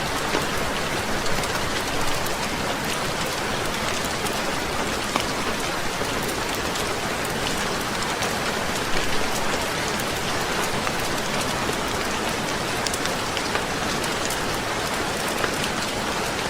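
Heavy rain falling steadily, with scattered sharp clicks throughout.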